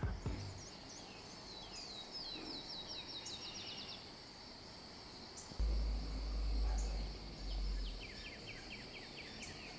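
Faint garden ambience: small birds singing fast trills of repeated short notes, one about two seconds in and another near the end, over a faint steady high whine. A deep low rumble, typical of wind on the microphone, rises in the middle and is the loudest part.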